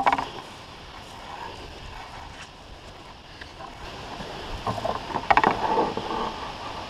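A sharp knock at the start, then footsteps and the rustle of leaves and branches as someone pushes through bush, louder and busier from about four seconds in.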